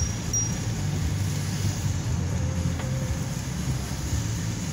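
Car cabin noise while driving on a wet road: a steady low rumble of engine and tyres, with a few short, faint high pips right at the start.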